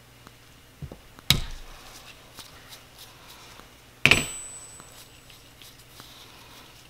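Two sharp metallic clinks of hand tools being picked up and handled, about a second in and again about four seconds in, the second louder with a brief high ring, between faint small clicks.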